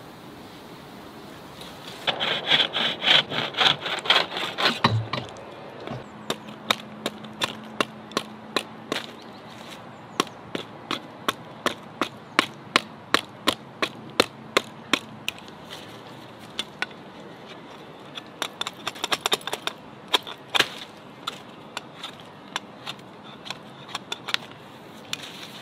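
A knife cutting into dry wood: a burst of quick sawing strokes, then a long run of sharp, evenly spaced chops at about two a second, then another flurry of rapid strokes and scattered chops near the end.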